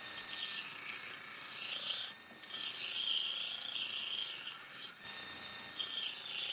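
Hand abrasion of the rusty katana: repeated rasping, rubbing strokes as rust is scraped off, with a short pause about two seconds in.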